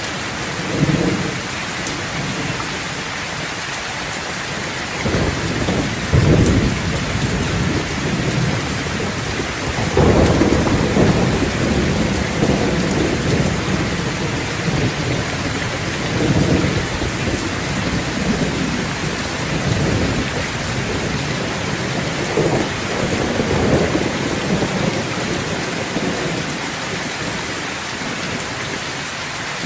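Thunderstorm: steady heavy rain with rolling thunder. A sharp thunderclap about ten seconds in is the loudest moment, with other rumbles swelling and fading before and after it.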